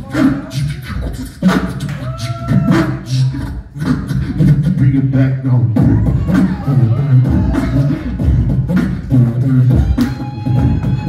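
Live beatboxing into a handheld microphone: a steady, rhythmic beat of vocal drum hits over deep bass tones, with short pitched vocal glides now and then.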